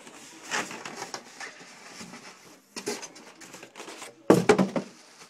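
Styrofoam packaging and plastic wrap being handled around a large subwoofer: irregular rustling, rubbing and creaking of foam and plastic, with a louder burst about four seconds in.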